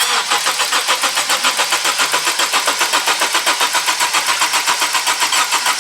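2013 Honda Accord's 2.4-litre four-cylinder engine being cranked over on the starter without firing, an even, fast rhythm of compression strokes, for a compression test on cylinder number 4.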